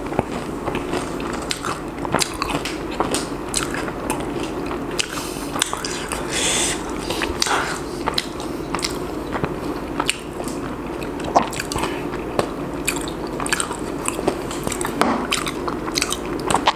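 Close-up chewing of crispy fried mushrooms coated in cheese sauce: a steady run of crunchy bites and wet mouth clicks.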